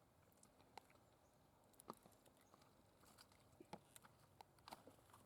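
Near silence, with faint, irregular clicks and taps scattered throughout.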